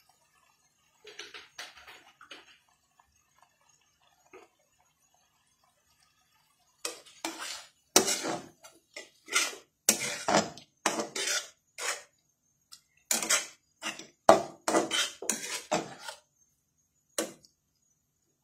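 A spatula scraping and knocking against a metal karahi as chicken in sauce is stirred: a few faint strokes early on, then about a dozen sharp scrapes and clinks in quick succession from about seven seconds in, with one last stroke near the end.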